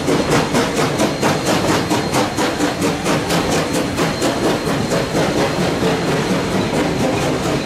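BB18¼ class 4-6-2 steam locomotive passing under steam, its exhaust chuffing in a steady beat of about three to four a second, with the wheels of the tank wagon and passenger carriages running over the rails behind it.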